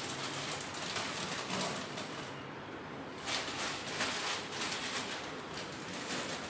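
Plastic snack packets crinkling and rustling in irregular bursts as they are handled and set on a cupboard shelf.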